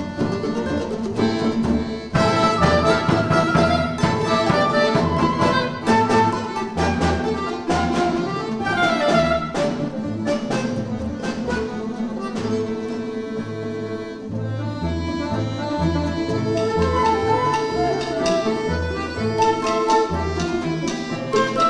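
Folk instrument orchestra playing: plucked long-necked lutes and bowed violins, with many quick plucked notes over a moving bass line.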